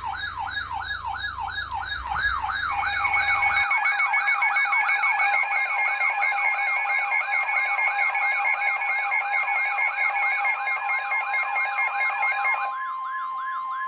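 Weather alert attention tones: a siren-like warble sweeping up and down about four times a second. Steady pulsing tones join it a few seconds in. Near the end it gives way to a single steady tone. The tones herald a National Weather Service special marine warning.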